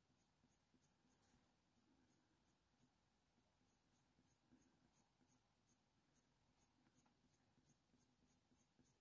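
Near silence, with faint scratching of a Faber-Castell Polychromos coloured pencil drawn over hot-press watercolour paper in short, light, repeated strokes.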